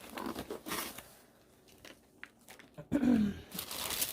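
Packaging rustling and crinkling as a subscription box is unpacked by hand, in short bursts, with a louder crinkle about three seconds in.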